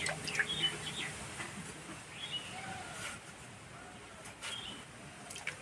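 Quiet handling sounds of potato preparation: cut potato pieces dropped into a steel bowl of water, then a potato peeled against a boti blade, giving a few small clicks and splashes. Faint high chirping sits behind them.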